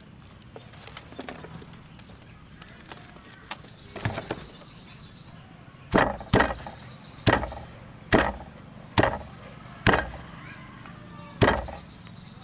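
A pestle pounding wet spice paste in a stone mortar. There are a few light knocks at first, then from about six seconds in a steady run of heavy thuds, about one a second.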